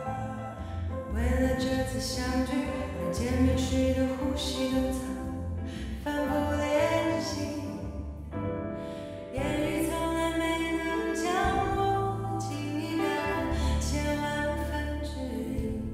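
A woman singing a song into a microphone, with instrumental backing and a steady bass.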